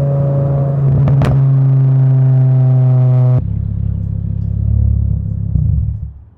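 Volkswagen MK5 Jetta's inline five-cylinder engine running at a steady pitch, with a sharp click about a second in. About three and a half seconds in, the sound switches abruptly to a lower, rougher rumble that fades out near the end.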